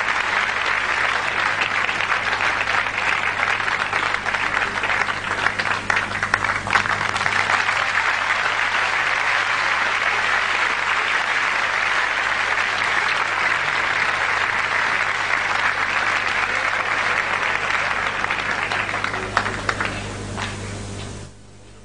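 Large concert-hall audience applauding, steady dense clapping that dies away near the end. A low steady hum runs underneath.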